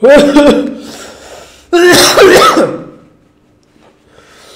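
A man coughs loudly twice, the second cough longer and coming almost two seconds in. He is reacting to the burn of extremely hot chili-dusted chips.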